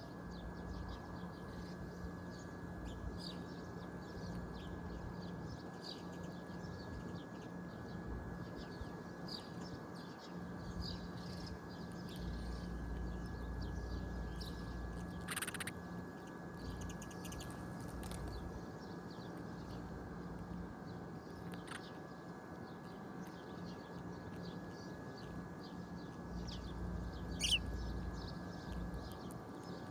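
Faint, scattered bird chirps over a steady low hum and light background noise, with a louder call about halfway through and another near the end.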